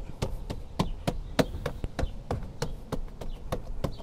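Hand tapping the rubber weather stripping back onto the rear door opening of a Toyota Prius Prime, reseating the seal. It makes a quick run of light taps, about three or four a second and unevenly spaced.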